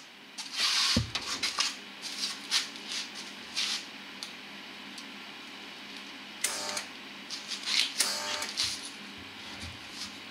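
Scattered clicks, knocks and short rattles of hands and tools working on steel, over a faint steady hum; the louder bursts come about half a second in and again around six and a half and eight seconds in.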